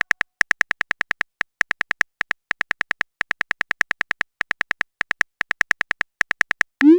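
Rapid keyboard-typing clicks of a texting app's sound effect, coming in bursts of about seven or eight a second as a message is typed out, ending near the end with a short rising blip as the message is sent.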